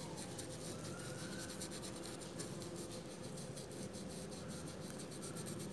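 Paintbrush scrubbing paint over the textured surface of a rubber mat: a faint, steady scratching rub.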